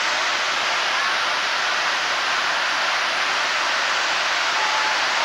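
Steam locomotive venting steam: a steady hiss with no chuffing beat.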